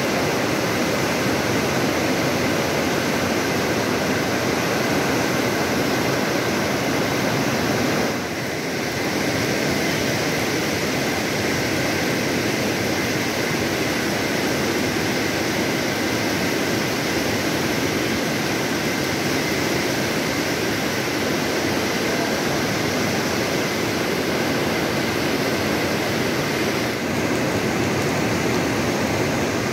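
Teesta river in muddy flash flood, rushing in a steady, loud roar of water. It dips briefly about eight seconds in and again near the end.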